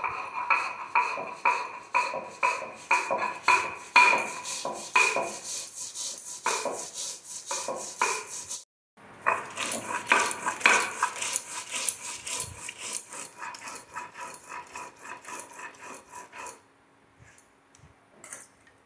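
Stone roller (nora) scraped back and forth on a flat stone grinding slab (shil), grinding poppy seeds, mustard seeds and chillies into a wet spice paste: a steady rhythmic rasping of about two to three strokes a second. There is a brief break about nine seconds in, and the grinding stops near the end.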